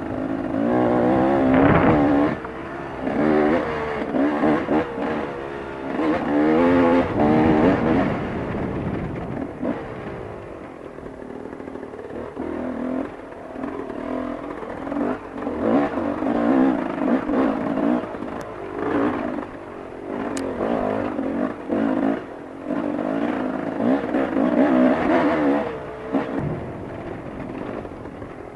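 Enduro dirt bike engine being ridden hard on a trail, its note rising and falling over and over as the throttle is opened and shut, with the loudest surges in the first eight seconds and again later on.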